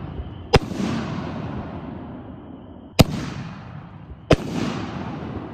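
Tannerite 60g reloadable artillery shells: a shell bursts about half a second in, then a second shell is launched from its mortar tube with a sharp thump about three seconds in and bursts about 1.3 seconds later. Each report is followed by a long rolling echo.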